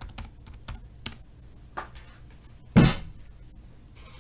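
Computer keyboard typing: a quick run of keystrokes in the first second, then a single heavier thump a little under three seconds in.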